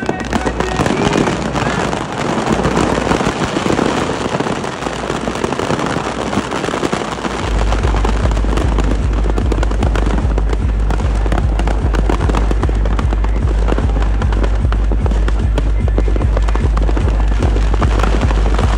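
Firecrackers packed in a burning Ravan effigy going off in a dense, rapid crackle of bangs. About seven seconds in, music with a heavy, steady bass beat joins.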